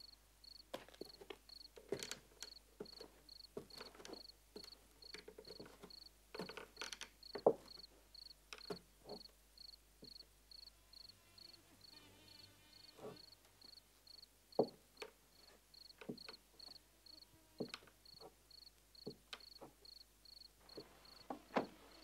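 A cricket chirping steadily, about two chirps a second, with scattered knocks and clicks.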